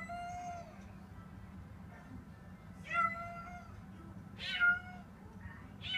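Domestic cat meowing in alarm: a drawn-out meow at the start, then three more from about three seconds in, the third the loudest. The cat is upset by the room heater just switched on for the first time in the season.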